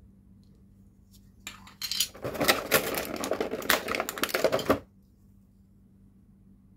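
Dense clattering and crinkling of a thin plastic packaging tray as a small toy part is pulled out of it. It lasts about three seconds, starting about a second and a half in.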